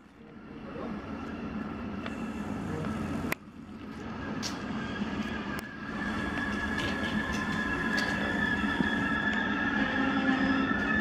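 Koleje Mazowieckie double-deck electric train at the platform, with a low steady hum. From about halfway through, a steady electric whine joins it and rises slowly in pitch.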